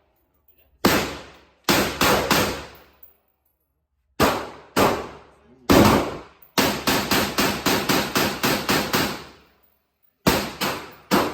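Gunshots fired at a shooting range, each with a ringing echo. A few single and paired shots come first, then a rapid string of about ten at roughly four a second, then three more near the end, as a magazine is emptied.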